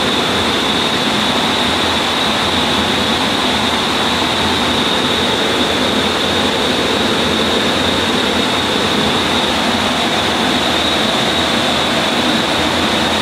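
CNC router running steadily, an even machine noise with a constant high whine over it and no separate knocks or cuts standing out.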